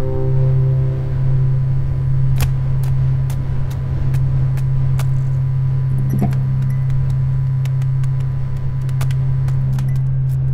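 A loud, steady low drone with scattered faint clicks and crackles over it.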